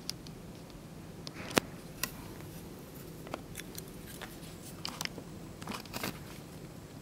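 Quiet room tone: a low steady hum with scattered small clicks and taps, the sharpest about one and a half seconds in.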